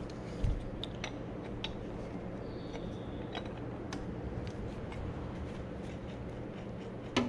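A 7/8 wrench working the nut on top of a bypass oil filter canister: scattered light metal clicks and taps, with a low thump about half a second in and a sharper click near the end, over a steady low hum.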